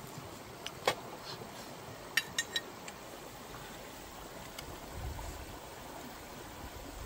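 A shallow stream flowing steadily. About a second in there is one sharp click, and three more follow quickly at around two seconds, as a cleaver knocks against the metal pan while cutting the cooked pork leg.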